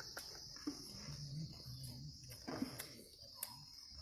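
Faint, steady, high-pitched chirring of insects in the background, with a few soft clicks and faint distant voices.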